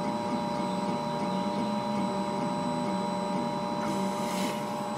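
Tiertime Up Mini 2 3D printer running: its stepper motors whine in short tones that jump in pitch every fraction of a second as the print head moves, over a steady hum.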